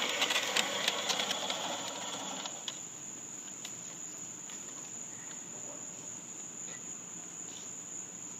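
Fiskars StaySharp Max push reel mower's spinning reel clicking and whirring as it cuts overgrown grass, stopping about two and a half seconds in. Insects keep up a steady high trill throughout.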